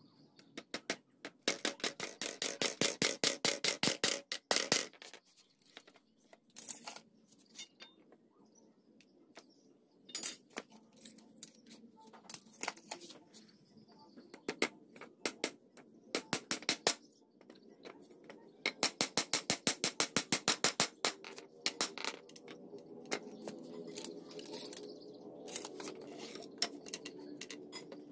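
Claw hammer driving nails into a wooden frame joint: two quick runs of rapid blows, one about a second in and one about two-thirds of the way through, with scattered single taps between and after.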